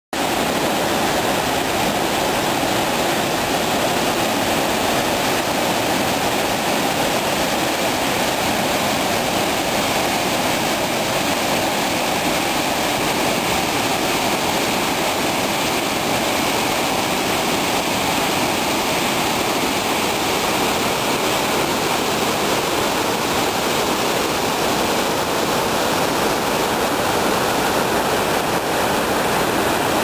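Loud, steady rushing of a waterfall and white-water river rapids.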